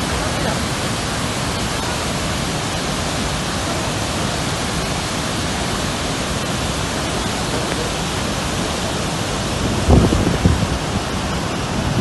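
Niagara's Horseshoe Falls pouring, heard close to its base as a steady, dense rush of falling water and spray. A few louder low thumps come near the end.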